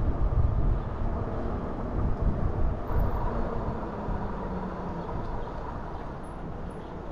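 Wind buffeting the microphone of a moving bicycle, a fluttering low rumble that slowly eases off, with a faint steady hum underneath.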